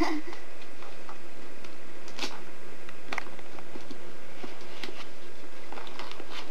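Scattered light clicks and rustles of a gift box and its wrapping being handled by a child's hands, over a steady low background hum.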